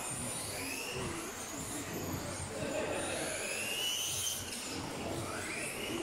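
Several RC off-road buggies racing, their motors whining in overlapping high-pitched sweeps that rise and fall as they accelerate and brake, over a steady background noise.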